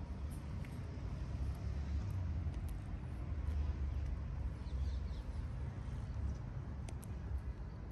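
Steady low outdoor rumble of background noise, rising and falling a little, with a couple of faint clicks.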